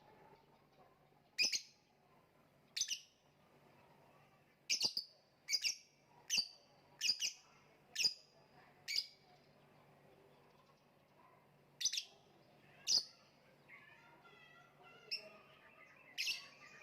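Lovebird calling in single short, sharp chirps, about eleven of them, mostly a second or so apart with a pause of a few seconds midway; fainter chattering comes in near the end.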